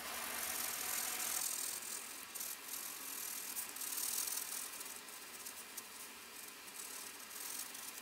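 Graphite pencil scratching and shading on paper: an irregular dry, high hiss with short strokes, louder in the first couple of seconds.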